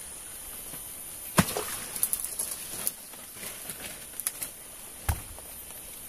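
Rotten wood and dead branches being pulled loose and snapped by hand: a sharp crack about a second and a half in, then a run of smaller snaps and rustles, and another knock near the end.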